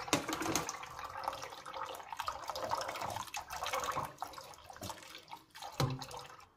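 Tap water pouring into a metal pan of soaked soybeans in a stainless steel sink, splashing and frothing as the loosened bean skins are rinsed off. Light clinks of a spoon against the pan come through the water, with a brief louder sound near the end.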